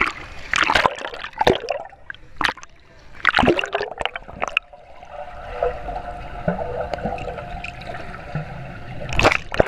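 Pool water splashing against a handheld camera at the surface, several sharp splashes in the first few seconds. The camera then goes under, and the sound turns to a muffled, steady underwater hum. One more splash comes near the end.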